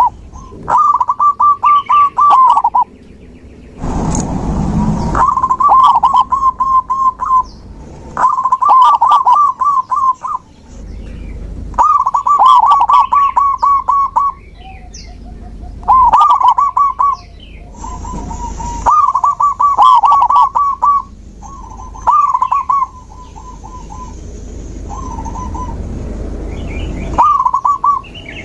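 Zebra doves (perkutut) cooing: about nine phrases of fast, stuttering notes near one pitch, one every two to three seconds. Other small birds chirp faintly and higher behind them, and there is a brief rush of noise about four seconds in.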